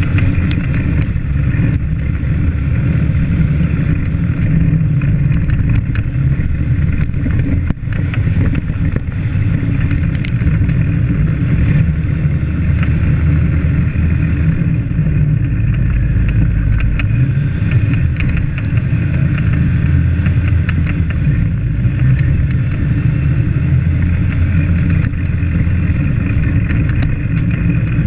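An ATV's engine running steadily at trail speed while riding over a rough dirt trail, its pitch shifting a little with the throttle, with scattered knocks and rattles from the bumps.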